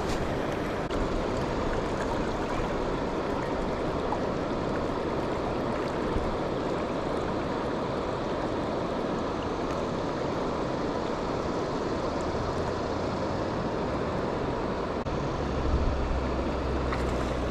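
River water rushing steadily, an even wash of moving water, with a low rumble joining in near the end.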